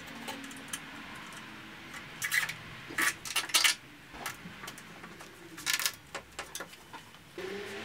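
Small metal parts clinking and rattling against a brushed aluminium radiator cooling panel while it is fitted: a few sharp, bright clinks in short clusters through the middle.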